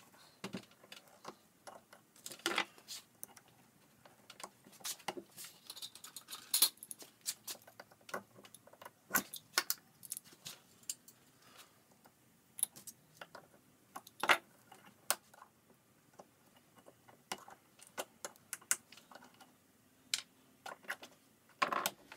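Irregular metallic clicks, scrapes and sharp knocks as a metal pick digs the old epoxy filler out of the eye of a loose claw hammer head, the handle working loose in it.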